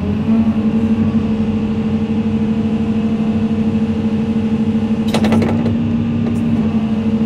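Hitachi ZX200-5G excavator's diesel engine revving up to high idle, about 2000 rpm, and running with a steady hum while both hydraulic pumps are held over relief at about 37.8 MPa. Heard from inside the cab. A short clatter about five seconds in, as the relief load comes off.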